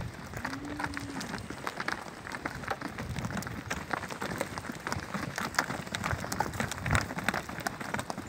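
Hooves of a herd of calves walking over hard dirt: a dense, irregular patter of many short steps.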